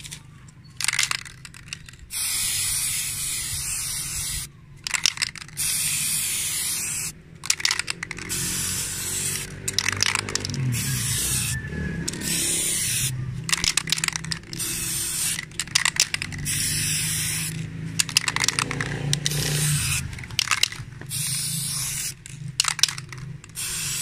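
Aerosol can of chrome spray paint hissing in a long series of bursts, each from a fraction of a second to about two and a half seconds, with short pauses between, as a brake hub plate is coated.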